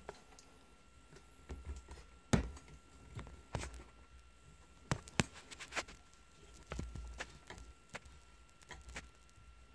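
Irregular light knocks and clicks of handling noise, about a dozen scattered through, with no drill running.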